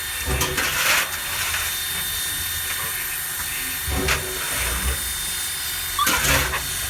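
Steam locomotive hissing steadily, with three louder brief bursts near the start, about four seconds in and about six seconds in.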